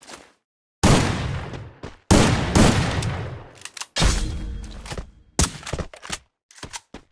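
A series of loud, sudden bangs, each fading away over about a second, then a quicker run of short cracks near the end.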